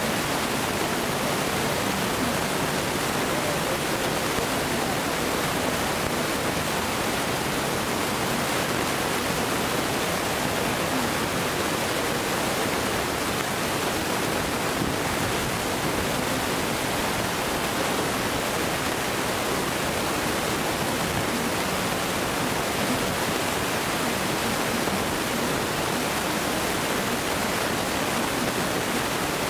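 A steady, even rushing noise with no distinct events and no fireworks bursts.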